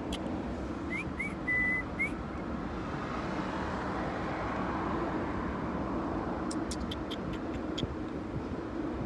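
A few short whistled notes, rising chirps and one held note, about a second in, over a steady background hum; a quick run of faint clicks follows near the end.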